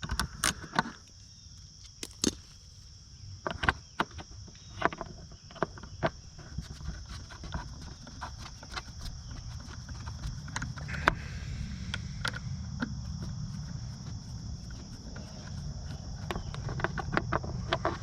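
Scattered clicks and taps of hand tools working the cover bolts on a small motorcycle, with a steady high chirring of crickets behind.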